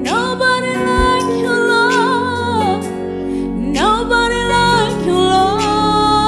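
Gospel worship music: a lead line of long, wavering held notes in two phrases, each starting with a quick upward slide, over a sustained accompaniment.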